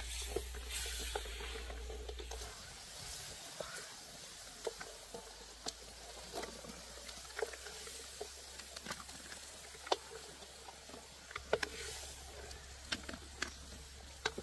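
Irregular light clicks and taps, a few louder ones standing out, over a faint steady hiss.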